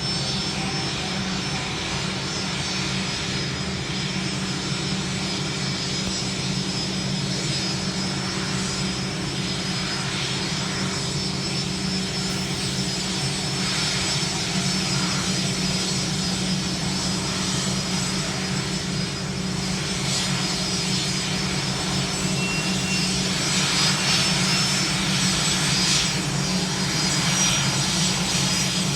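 Aircraft engines running steadily, with a low hum under a high hiss, growing slightly louder over the last few seconds.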